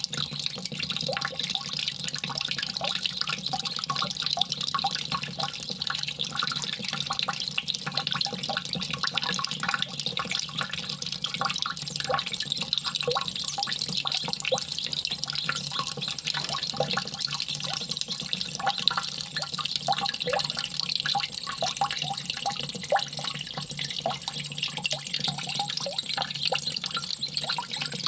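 Water trickling continuously, with a dense patter of small drips and splashes.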